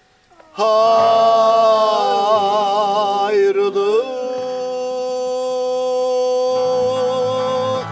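Man singing an Azerbaijani folk song: a long drawn-out 'ha' begins about half a second in, wavers through quick ornamented trills, then is held steady on one note. Accordion and acoustic guitar accompany him.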